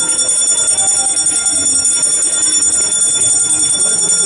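A handbell rung rapidly and without pause during an aarti, giving a steady, high ringing that neither swells nor fades.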